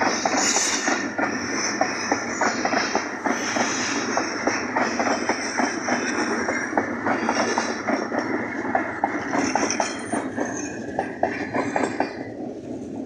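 Hazara Express passenger coaches rolling past close by: a rapid, steady clickety-clack of wheels over the rail joints with a high squeal above it. The sound begins to fade near the end as the last coaches pass.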